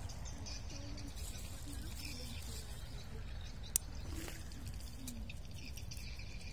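Outdoor ambience: a steady low rumble with faint distant voices and a few faint chirps, and one sharp click just before four seconds in.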